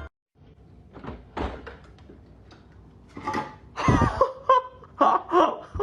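A few knocks and thumps, the loudest a heavy thump about four seconds in, followed by a voice starting near the end.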